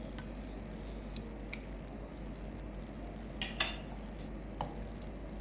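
Wooden spatula stirring in a metal pan, with a few light clinks of pan and dishes, the loudest pair about three and a half seconds in, over a steady low hum.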